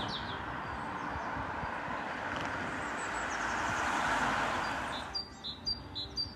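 Steady outdoor rushing noise, like wind or distant traffic, that swells and fades, then drops away about five seconds in to birdsong: a small bird chirping repeatedly, about two chirps a second.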